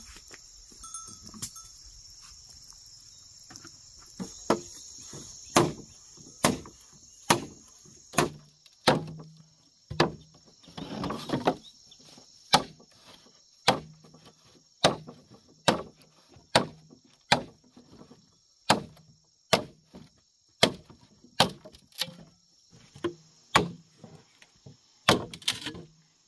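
A hand tool striking over and over, about once a second, starting a few seconds in, with a short dull ring after many of the blows. A steady high-pitched insect drone runs behind it.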